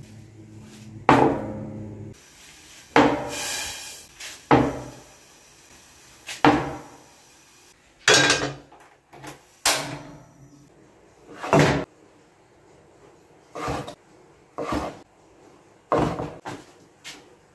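Kitchen utensils knocking and clattering: about a dozen separate knocks a second or two apart, with a longer hissing rustle about three seconds in. The last knocks are a chef's knife cutting bread crusts on a plastic cutting board.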